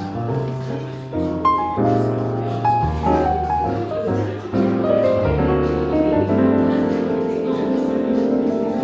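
Smooth jazz piano music: a piano playing chords and melody over a plucked bass line that changes note every second or so.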